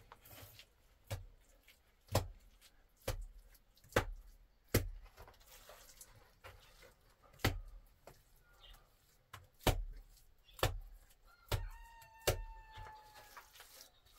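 Sharp knocks and slaps, roughly one a second with some gaps, from work with wet mud. Near the end a chicken gives one drawn-out call of nearly two seconds, falling slightly in pitch.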